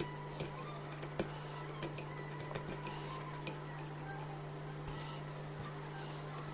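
Eating sounds: scattered sharp clicks and crunches of chewing fried chicken, denser in the first few seconds, over a steady low hum.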